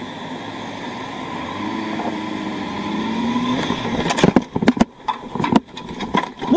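Motorcycle engine running at low road speed, its note rising briefly about two seconds in. In the last two and a half seconds a run of sharp knocks and thuds.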